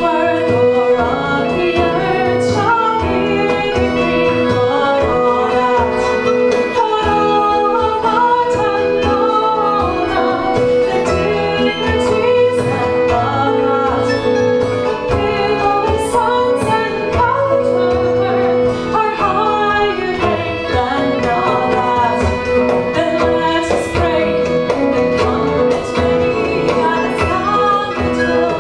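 Celtic folk band playing live, a woman singing over the instruments, with a held drone note underneath and light percussive strokes.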